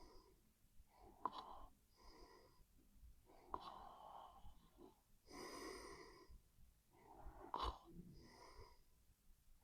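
Faint breathing of a sleeping person: a run of soft, noisy breaths every second or two, some starting with a small click, the loudest about halfway through.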